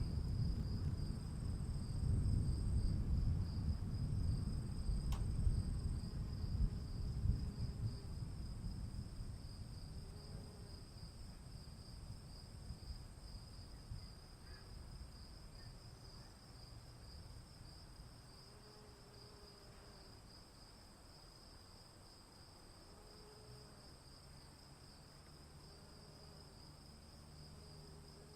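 A long low rumble of thunder, loudest at the start and fading away over the first half, under a steady high chirring of insects, crickets by the sound of the tags.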